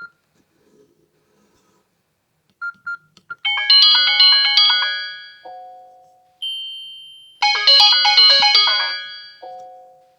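Samsung C3520i phone loudspeaker playing a polyphonic MIDI ringtone from a Siemens phone. A few short beeps come first. A bright multi-note phrase with fading notes then starts a few seconds in and repeats about four seconds later.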